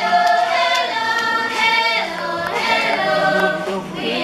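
A choir of schoolchildren singing a song together in phrases of held notes as they march in.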